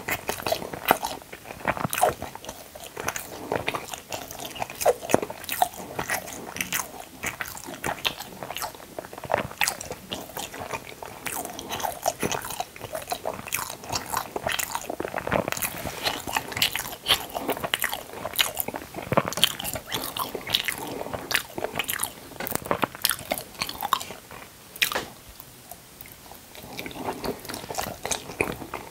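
A person eating: biting and chewing food, with many sharp, irregular clicks, and a short lull about 25 seconds in before the chewing resumes.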